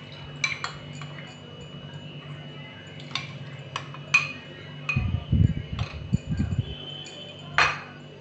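A metal spoon clinks sharply against a glass bowl several times as milk and cornflour paste is scraped out into a nonstick pan of mango pulp, with a stretch of low handling and stirring noise in the middle, over a faint steady hum.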